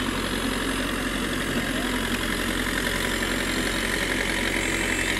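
Backhoe loader's diesel engine running steadily as it pushes soil with its front bucket, with a higher-pitched noise growing louder near the end.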